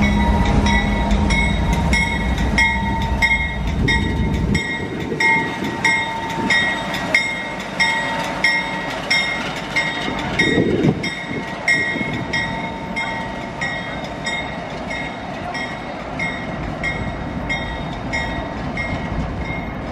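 CSX General Electric diesel freight locomotives with a locomotive bell ringing steadily, about two strokes a second. A deep engine rumble from the passing locomotives is loud at first and drops away sharply about four and a half seconds in, leaving the bell over the quieter running of the approaching locomotives.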